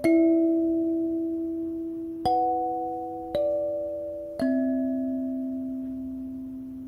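Calm background music: soft, bell-like struck notes that ring out and slowly fade, a new note or chord every one to two seconds.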